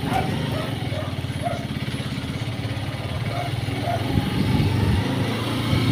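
Small motorcycle engine running steadily with a fast low pulse while riding, heard from on board.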